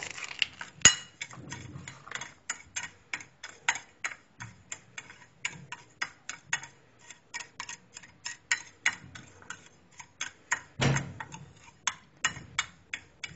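Metal spoon clinking against a glass bowl, about four clicks a second, as sugar and vanilla flan powder are stirred together. One louder click comes about a second in.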